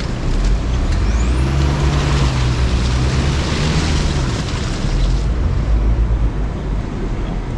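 GMC Canyon pickup's engine pulling under load in four-wheel drive, a steady low drone that rises a little mid-way. A rushing hiss of tyres working through mud swells in about a second and a half in and cuts off about five seconds in.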